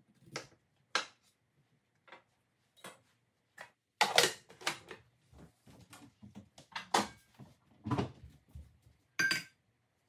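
Kitchen handling noise: a couple of knife strokes through potato on a cutting board, then irregular knocks and clanks of cupboard and kitchenware being handled, with a stainless-steel mixing bowl set down on the stone counter. The loudest clatter comes about four seconds in.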